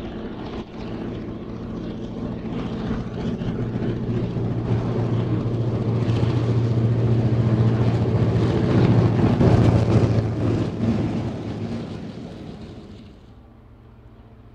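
Victorian Railways T-class and Y-class EMD diesel locomotives working hard as they approach and pass, their engines' steady drone building to its loudest about two-thirds of the way through, then fading. Near the end it drops away sharply to a much quieter background.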